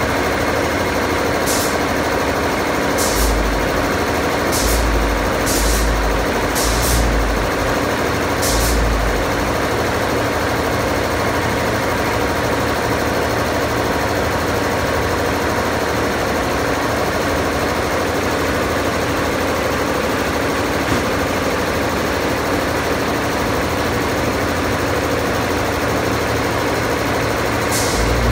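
Kirloskar KCX3 reciprocating ammonia refrigeration compressor running steadily, loud and even. A few short thumps with a hiss come in the first nine seconds.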